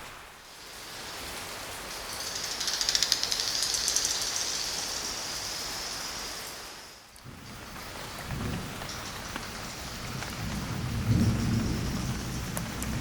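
Tropical rain hissing steadily, with thunder rumbling low. The recording changes about halfway through, and the deeper, louder rumbles come in the second part.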